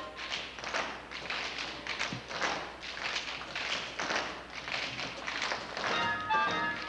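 Tap shoes of a line of dancers striking a wooden stage in an unaccompanied tap break, a quick irregular run of taps and stamps. About six seconds in, a short burst of band chords comes back in.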